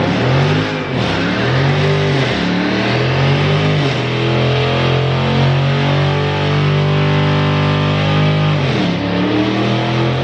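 Dodge Charger Scat Pack's 6.4-litre HEMI V8 held at high revs during a burnout, with the rear tyres spinning against the road. The revs climb, hold steady, dip briefly near the end and climb again.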